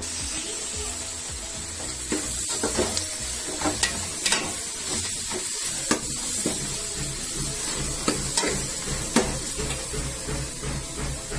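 Sliced onions sizzling in hot oil in a pot, with a perforated steel spatula scraping and knocking against the metal pot as they are stirred: a steady hiss broken by scattered sharp clanks.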